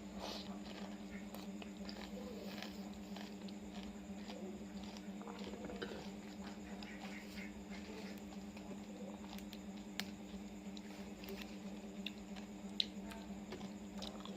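Close-up eating sounds: chewing and small wet mouth noises from someone eating fresh oysters, with scattered sharp clicks, over a steady low hum.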